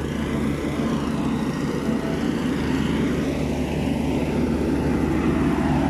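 Yanmar rice combine harvester's diesel engine running steadily with a constant low drone.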